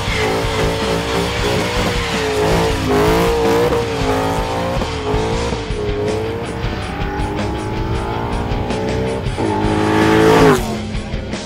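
A 2011 Ford Mustang's 5.0 Coyote V8, fitted with COMP Cams stage 2 camshafts and breathing through long-tube headers and a cat-back exhaust, runs at high revs during a burnout while the rear tyres squeal with a wavering pitch. From about six seconds in the exhaust note rises as the car accelerates. It passes loudly near the end, and the pitch drops as it goes by.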